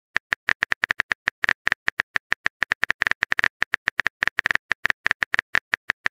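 Phone keyboard typing sound effect: quick, irregular clicks of keystrokes, about six or seven a second, as a message is typed out.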